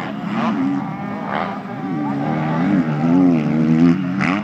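Motocross bike engines revving on the track, their pitch swinging up and down as the throttle opens and closes, with more than one engine overlapping. They grow louder in the second half.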